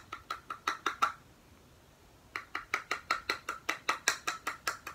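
Small plastic loose-powder jar clicking rapidly as it is tapped and shaken, about five or six clicks a second, in two runs with a pause of about a second between them.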